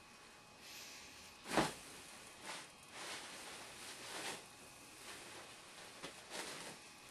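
A series of faint, short swishes of a paintbrush stroking across canvas, the loudest about one and a half seconds in.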